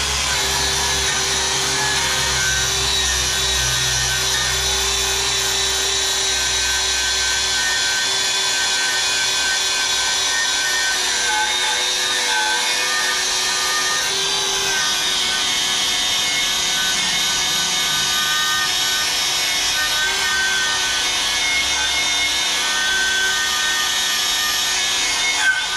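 Steady grinding from a power tool working steel, running without a break. A low hum under it drops away about eight seconds in.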